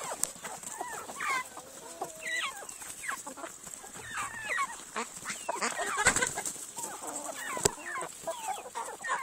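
Chickens clucking, several birds calling over one another in short overlapping clucks throughout, with two sharp clicks, the louder one about seven and a half seconds in.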